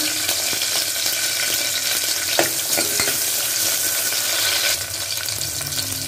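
Small onions (shallots) frying in hot oil in an aluminium pressure cooker: a steady, dense sizzle that eases slightly near the end, with a couple of light knocks partway through.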